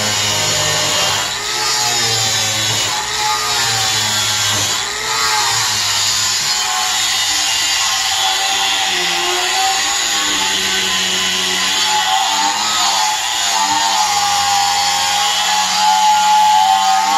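Electric angle grinder with a steel wire cup brush running continuously and scrubbing rust off a cast-iron cauldron lid. Its whine dips and rises in pitch as the brush is pressed and moved over the metal.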